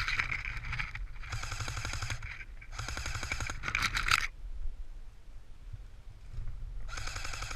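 Airsoft electric guns firing rapid full-auto bursts of pellets, about five bursts of fast clicking, each lasting up to about a second, with short pauses between them.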